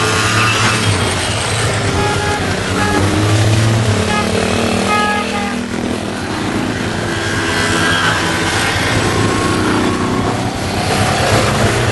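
A column of vintage scooters and motorcycles riding past one after another, several small engines running at once. Their notes overlap and slide up and down in pitch as each machine comes by.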